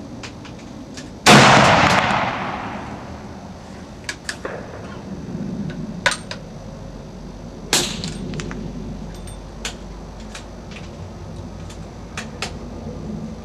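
Snider-Enfield Mk III cavalry carbine firing one shot of .577 black-powder cartridge: a single very loud blast about a second in that rings out and fades over a second or so. The heavy muzzle blast comes from the short barrel not burning the full powder charge. Lighter clicks and knocks follow at scattered moments.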